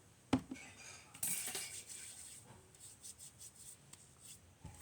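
Small plastic containers and utensils being handled on a tabletop: a sharp knock about a third of a second in, a brief scrape about a second later, then light scattered clicks.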